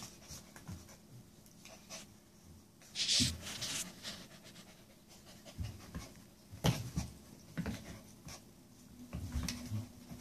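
Two Keeshond dogs, a puppy and an adult, mouth-wrestling in play: breathy huffs, scuffles and clicks, the loudest huff about three seconds in, and a steady low whine starting near the end.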